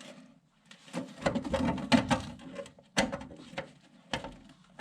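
Welder laying short spot welds on thin car body sheet metal, crackling in irregular bursts separated by brief pauses.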